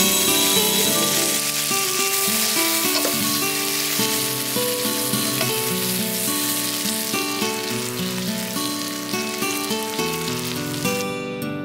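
Miso-marinated meat sizzling and frying in a black iron pan, a steady hiss, with soft background music underneath. The sizzle cuts out briefly near the end.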